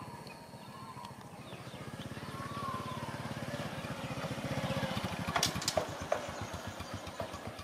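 Small motorcycle engine running at low speed, its rapid exhaust pulses growing louder midway as it pulls along, with a few sharp clicks about five and a half seconds in.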